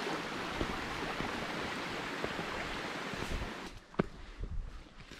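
Shallow, rocky mountain river flowing, a steady rush of water that cuts off about three and a half seconds in. After that, quieter footsteps on a grassy trail, with a sharp knock about four seconds in.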